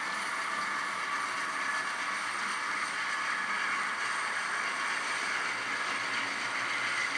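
A real loaded coal train running steadily, heard as an even, unbroken noise.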